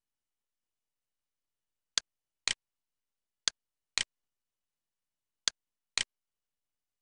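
Computer mouse clicks, the even, identical clicks a screen recorder lays over its capture, coming as three press-and-release pairs, each pair half a second apart, with dead silence between.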